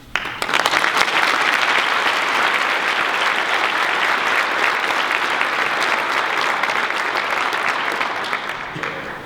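Audience applauding, starting abruptly and fading away near the end.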